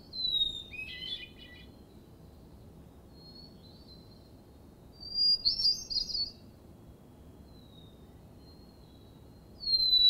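Hermit thrush singing: separate song phrases, each a clear held whistle that runs into a quick fluty flourish. The phrase in the middle is pitched higher than the first, softer notes sound between the phrases, and a new phrase begins near the end.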